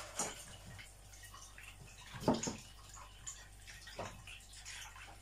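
Water splashing and sloshing in a mixing bowl as cold water is added to a milk-and-water dough base and stirred, with two louder knocks about two and four seconds in.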